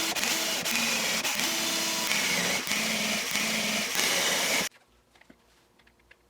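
Electric power tool running loudly, its motor pitch shifting as it works, then stopping abruptly about four and a half seconds in, followed by a few faint clicks.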